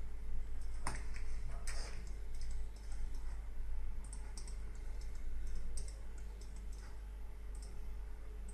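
Light, irregular computer mouse and keyboard clicks, with two louder clicks about a second and two seconds in, over a steady low hum.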